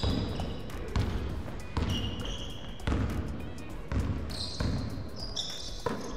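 A basketball being dribbled on a wooden gym floor, with a sharp bounce about once a second. Between the bounces, sneakers squeak briefly on the court.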